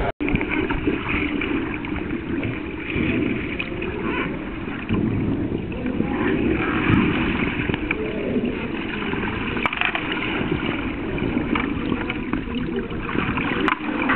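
Muffled rushing and bubbling of pool water heard through an underwater camera, stirred by a capsized kayaker sweeping his paddle during an Eskimo roll.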